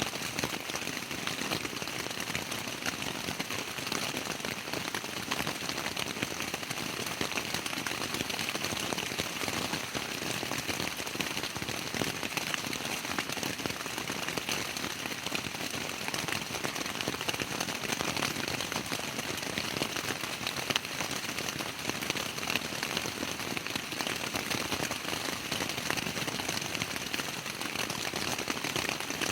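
Steady rain pattering on a tent's fabric, a dense, even patter of many small drop impacts.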